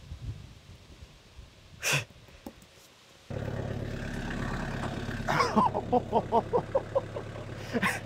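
Compact tracked loader's engine idling with a steady low hum that cuts in suddenly a few seconds in. From about halfway there is a quick, regular run of short squeaks, about four or five a second.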